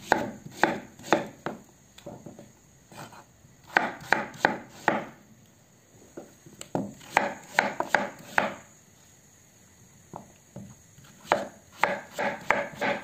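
Kitchen knife cutting through raw peeled pumpkin and striking a wooden cutting board: runs of quick, sharp chops, several a second, in four or five groups with short pauses between them.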